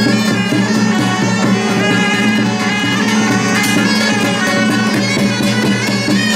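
Loud Taiwanese temple-procession music: reedy suona shawms playing a sustained, piercing melody over fast, steady drum and gong percussion.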